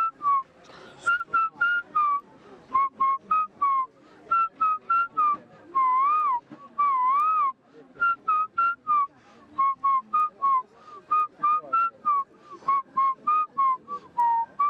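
A man whistling an imitation of a bird's call: quick runs of short chirping notes, with two longer warbling notes about six and seven seconds in.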